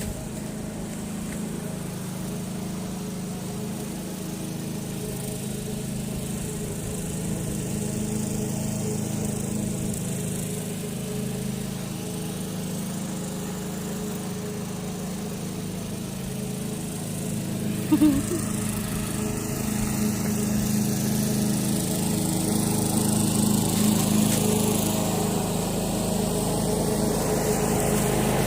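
Push lawnmower engine running steadily while cutting grass, with one short sharp knock about eighteen seconds in and the engine growing slightly louder near the end.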